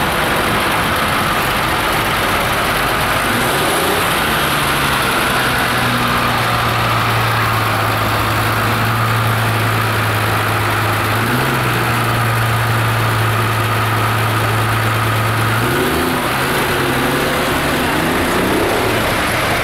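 Diesel farm tractor engines running as a line of tractors drives past. A steady low engine hum stands out from a few seconds in until near the end.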